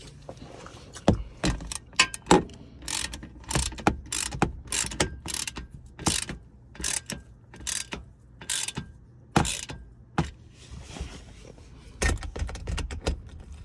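Hand ratchet with a 10 mm socket clicking in quick back-and-forth strokes, about two a second, as bolts are run down tight, with a short pause a little after the middle.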